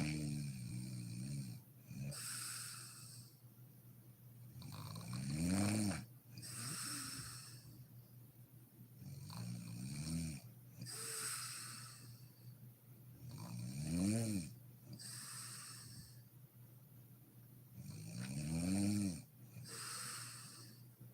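A woman snoring in sleep: on each breath in a pitched snore that rises in pitch, then a breathy hiss on the breath out, repeating about every four to five seconds, five breaths in all.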